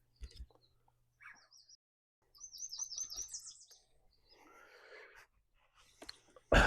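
A small songbird singing a quick run of repeated high chirps about two and a half seconds in. A loud knock comes just before the end.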